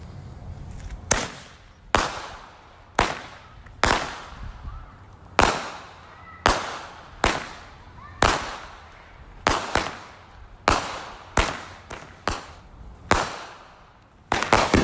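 Fireworks going off in a rapid series: sharp bangs about one a second, each echoing away before the next.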